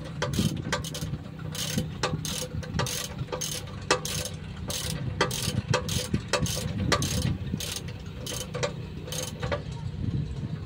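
Ratchet wrench clicking in short strokes, about two clicks a second, as it is worked on the top of a single-cylinder stationary engine, over a steady low hum.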